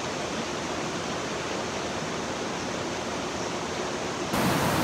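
Shallow river riffle rushing steadily over stones, an even wash of moving water. Near the end it suddenly gets louder.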